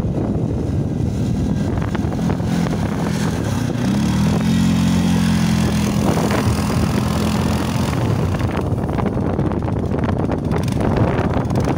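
CFMoto CForce 550 quad's single-cylinder engine running steadily as it rides through shallow snow. Its note is loudest and clearest about four to eight seconds in, as it passes close by, over a steady noisy rush.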